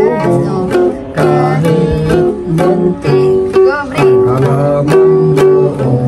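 Ukulele strummed in a steady rhythm, about two strokes a second, with the chords changing as it goes.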